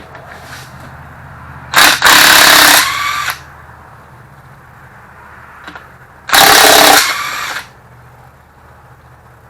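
A cordless power tool runs in two bursts of about a second and a half each, a few seconds apart, each at full speed with a steady whine and then a lower stretch before it stops, as it spins the nuts off the Ford 351 Windsor's connecting rod caps.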